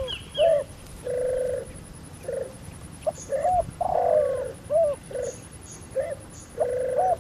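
A dove cooing over and over: a low rolling buzzy note followed by short arching hoots, in groups that repeat every second or two.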